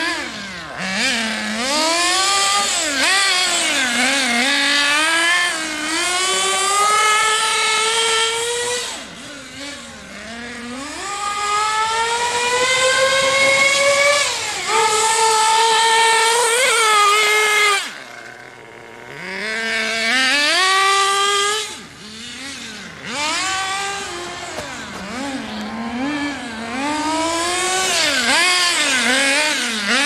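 An HPI Trophy 3.5 RC buggy's small two-stroke nitro engine revving hard and backing off again and again as it laps, its pitch climbing and dropping. There are long climbing pulls in the middle, then a brief fall to low revs just past halfway.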